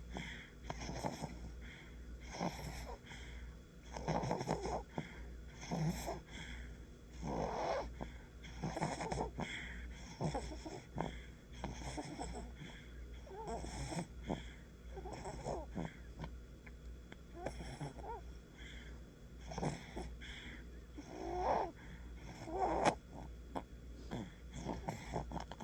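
Fluttery, wheezy snoring: a long run of breaths, one every second or two, the loudest near the end.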